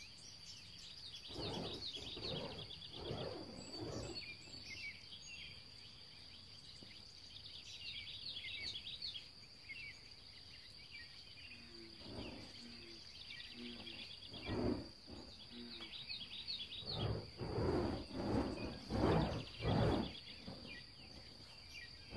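Burning juggling torches whooshing through the air as they swing and spin: a few surges early, then a quicker rhythmic run of whooshes, about one a second, in the second half, which are the loudest sounds. Behind them a steady high insect trill and birds chirping.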